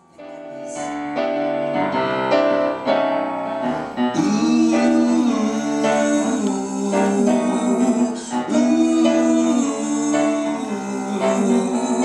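Grand piano playing a jazzy song intro live, coming in right at the start, with singing joining over the piano about four seconds in.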